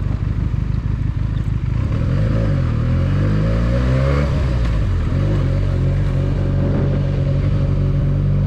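Benelli 302S motorcycle's 300 cc parallel-twin engine running while riding. The engine pitch climbs about two seconds in as the bike accelerates, then holds steady.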